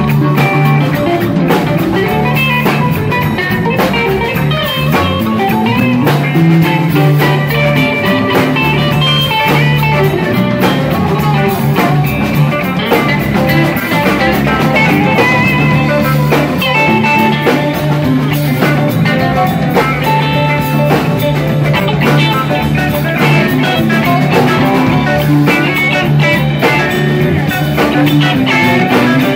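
Live rock band playing an instrumental jam: electric guitars over bass and drum kit.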